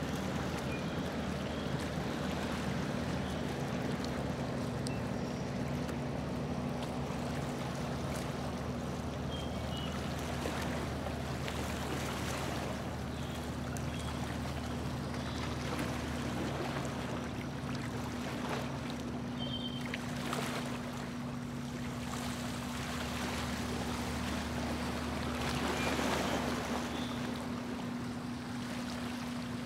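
A tour boat's motor runs steadily at cruising speed with a low, even hum, while water rushes and splashes along the hull. The wash swells briefly a few times, about twelve, twenty and twenty-six seconds in.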